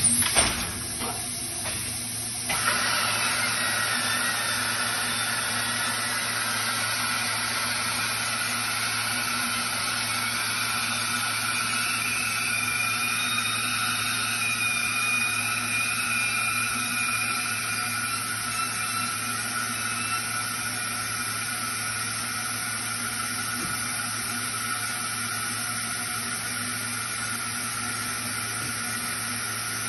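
Thermoforming machinery running: a steady hum and hiss with a thin high whine. A short clatter comes at the very start, and the noise steps up and the whine begins about two and a half seconds in.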